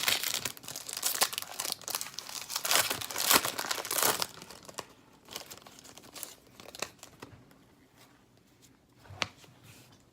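Hockey card pack wrappers crinkling and tearing as the packs are handled and opened, busiest and loudest over the first four seconds, then quieter rustling with a sharp click a little after nine seconds.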